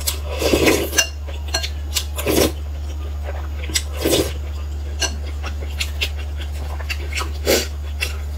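Soup slurped off a metal spoon four times, with light clicks of the spoon against a glass bowl in between. A steady low hum runs underneath.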